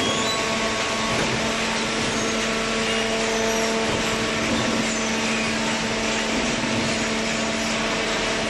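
Small horizontal hydraulic paper baler running: a steady mechanical hum with a dense hiss over it.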